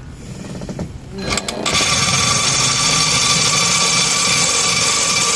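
Cordless drill starting about a second and a half in, then running steadily with a high whine as its bit bores into a metal bracket. The bit is one the user thinks needs sharpening.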